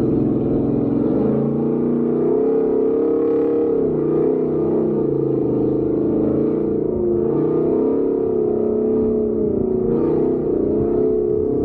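Vehicle engine running hard under throttle on a dirt course, its pitch rising and falling again and again as the driver gets on and off the gas.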